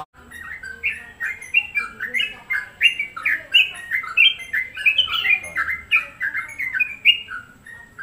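Caged yellow-vented bulbul (cucak trucuk) singing a long, fast run of short chattering notes, loud and nearly continuous.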